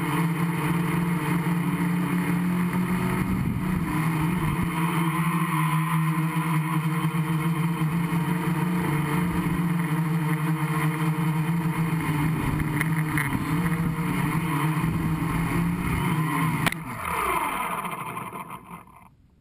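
Gaui 500X quadcopter's electric motors and propellers running with a steady hum in flight, heard from the camera on its frame. About 17 seconds in there is a knock as it touches down on the grass. The motors then spin down, falling in pitch, and the sound dies away.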